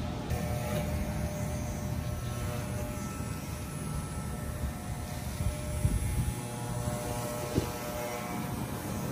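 Corded electric dog clippers buzzing steadily as they are run through a dog's long, shaggy coat, with two brief knocks about six and seven and a half seconds in.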